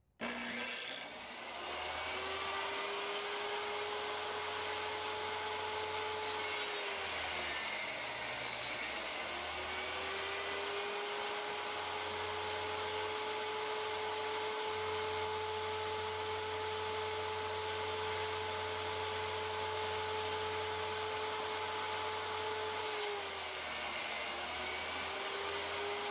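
Ridgid jobsite table saw switched on and spinning up within about a second, then running with a steady whine while cutting shallow bevelled passes across a wide oak board. Twice the whine's pitch sags for a second or two and recovers as the blade takes the load of the cut.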